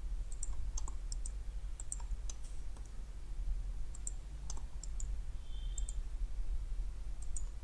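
Computer mouse clicking in scattered small groups of sharp clicks, over a steady low hum.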